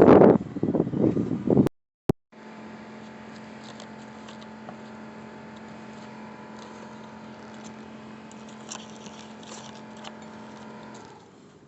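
A loud, busy clatter for the first second or two. Then, after a brief break, a steady machine hum with a low tone runs on and drops away near the end.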